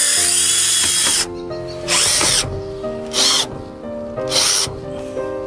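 Bosch electric drill driving screws through a metal rain-gutter bracket: one run of about a second, then three short bursts as the screw is pulsed down tight.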